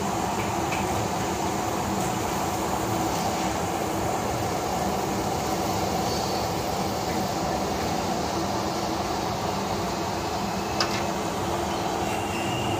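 Puri deep-frying in a large iron karahi of hot oil, a steady sizzle with a continuous rumble beneath it. A single sharp click about eleven seconds in.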